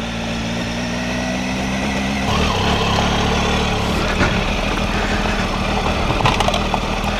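Triumph Tiger 800XCx's three-cylinder engine running steadily on a rough road, with road noise throughout; the engine note changes about two seconds in, and a few sharp knocks come near the end.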